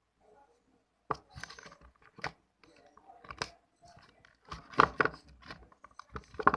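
Sticky slime being squished and stirred by hand, with irregular crackling pops and clicks, loudest about five seconds in.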